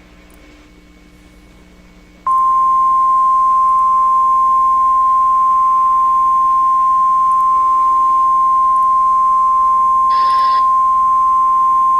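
NOAA Weather Radio 1050 Hz warning alarm tone, the signal that announces an emergency alert broadcast: one steady, loud, high tone that starts suddenly about two seconds in and holds for nearly ten seconds. Before it there is only a faint hum, and a short burst of hiss sounds under the tone near the end.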